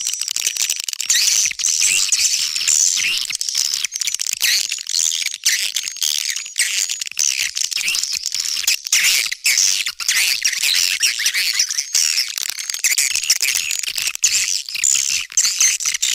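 Dense, continuous twittering and chirping of many swiftlets, calls overlapping without pause. It is a swiftlet calling-sound recording (suara panggil) of the kind played to lure edible-nest swiftlets into a nesting house.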